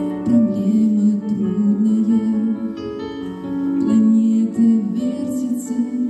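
A woman singing a slow melody with long held notes into a microphone, over instrumental accompaniment.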